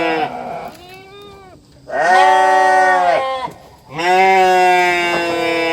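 Goat bleating: long, drawn-out bleats of a little over a second each, two seconds apart, with a fainter, higher call between them.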